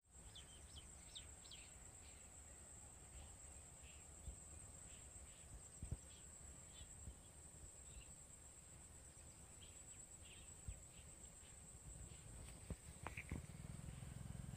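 Faint rural outdoor ambience: scattered short bird chirps over a steady high insect buzz and a low wind rumble, with a few soft knocks.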